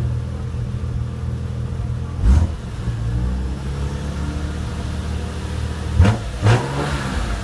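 BMW car's exhaust idling, with a quick blip of the throttle about two seconds in and two more quick blips in a row near the end, the revs dropping back to idle after each.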